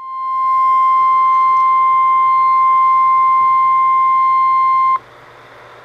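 NOAA Weather Radio 1050 Hz warning alarm tone from a weather radio receiver's speaker, one loud steady tone held for about five seconds and then cut off sharply, marking an Emergency Alert System required weekly test. After it, faint radio hiss with a low hum.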